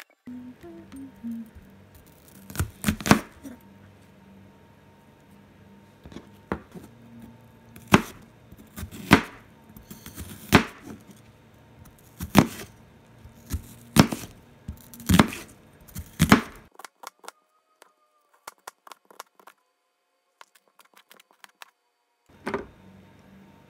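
Chef's knife slicing through an onion and knocking down on a plastic cutting board: a series of sharp chops, roughly one every second or so, then a pause and one more chop near the end.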